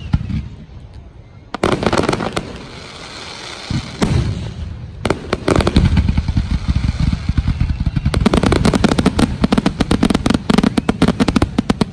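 Fireworks finale: aerial shells bursting with a few separate heavy booms, each trailing off in a rumble. About eight seconds in, a rapid barrage of many sharp cracks starts up.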